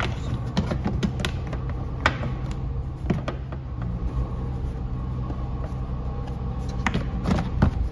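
Dodge Challenger's 3.6-litre V6 idling steadily, with scattered light clicks and knocks of the plastic engine cover being lined up and set back on.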